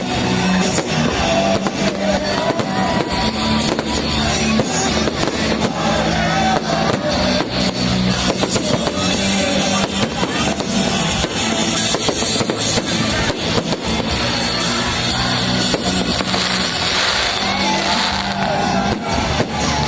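Fireworks bursting and crackling, many pops and bangs throughout, over loud music with a steady bass line.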